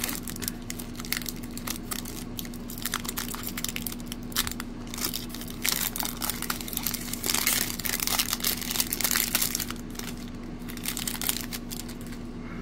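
Foil wrapper of a trading-card pack being torn open and crinkled by hand, a dense run of crackling that thins out about ten seconds in as the cards are drawn out.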